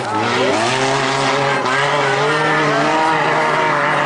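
Several stock car engines running and revving together on the dirt track, their pitch rising and falling, with one engine climbing in pitch about half a second in.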